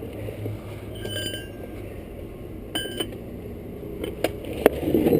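Steel tool parts clinking and knocking twice with a short ring, then a few sharp knocks, as the next jackhammer is set up with its chisel bit; a steady low hum runs underneath.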